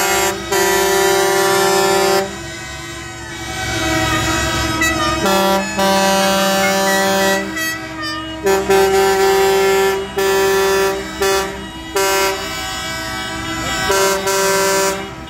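Horns on a line of passing tractors honking again and again, in held blasts of one to several seconds, several at once at different pitches, over the low run of the tractors' engines.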